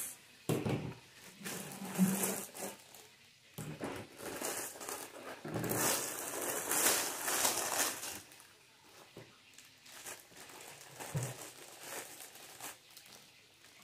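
Clear plastic bags and bubble wrap crinkling and rustling as parts are unwrapped by hand, loudest in a long stretch about halfway through, with a few short knocks.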